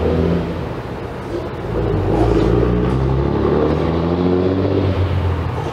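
A motor's engine running, its pitch shifting up and down and growing louder about two seconds in, then easing off near the end.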